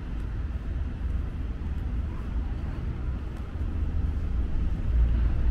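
Outdoor street ambience: a steady low rumble of traffic that grows louder near the end.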